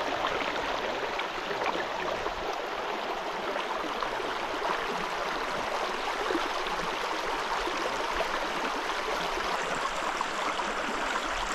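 Water of a shallow river rushing over rocks in a riffle right beside the microphone: a steady, even rush with no breaks.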